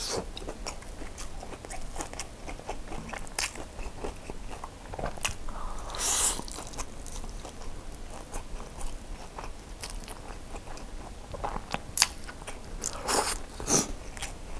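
Close-miked eating of crispy fried chicken and noodles: crunchy bites and chewing, with scattered sharp crackles and a few short louder noisy swells, one about midway and two more near the end.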